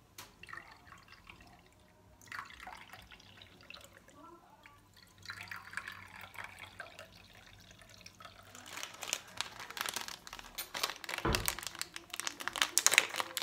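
Water poured from a stainless-steel kettle into porcelain cups, trickling in a few separate pours. About two-thirds of the way through, a plastic packet is crinkled and torn open, with one thump midway through the crinkling.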